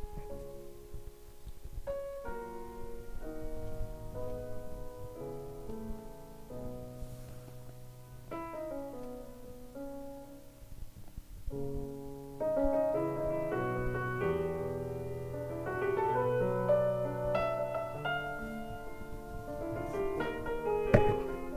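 Solo piano music in a classical style, played back through Yamaha NS1000 hi-fi loudspeakers. The playing grows louder and fuller about halfway through.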